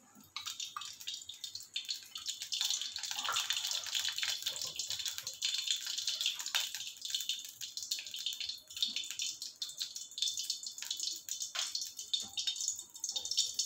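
Sesame oil heating in an aluminium kadai, sizzling steadily with many fine crackles, a sign that the oil is getting hot enough for tempering. The sizzle starts about a third of a second in.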